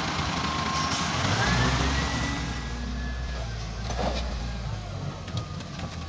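Diesel engine of an XCMG LW300KN wheel loader running as it loads soil into a tractor trailer, with a thin whine gliding up and down in pitch and a few short knocks near the end.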